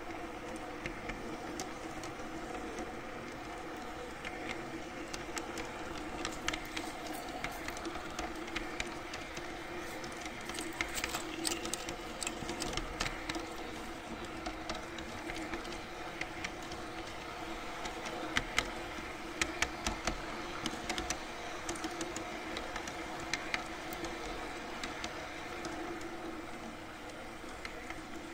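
Garden-scale model train running along its track: a steady electric motor hum with scattered clicks from the wheels crossing rail joints, which come thickest around the middle.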